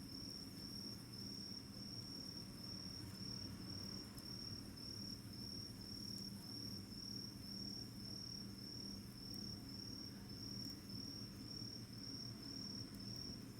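Insect song: a steady, high-pitched chirping trill that pulses evenly about twice a second.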